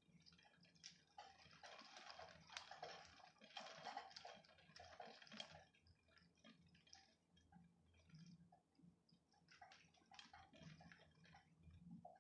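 Faint rain dripping and pattering as irregular taps, in a denser spell over the first half and again near the end.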